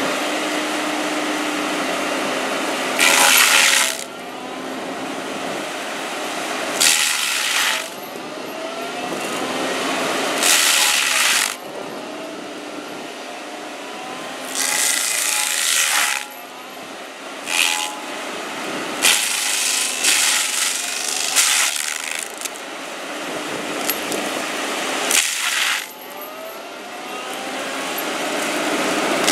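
FAE SCL/EX/VT excavator-mounted stump grinder chewing down a tree stump: the toothed rotor runs continuously, with loud bursts of chipping every few seconds as its teeth bite into the wood, and a rising whine between bites.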